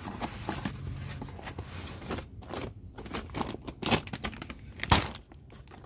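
Hand tools clinking and rattling against each other as someone rummages through a soft-sided tool bag, with a sharper clack about five seconds in.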